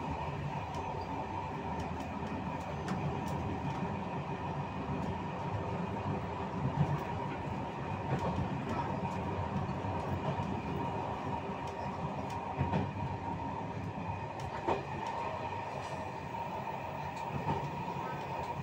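Passenger train carriages running along the track, heard from the back of the train: a steady rumble of wheels on rail with a faint steady whine and scattered clicks as the wheels pass over rail joints.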